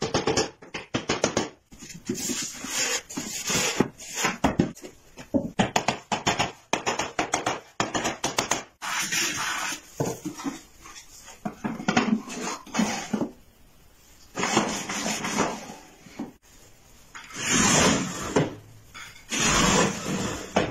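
Wooden drawers and trays of a wooden cabinet knocking and sliding against the wood: a string of sharp clacks and short scrapes, with two longer sliding rasps near the end as the slatted tambour front is moved.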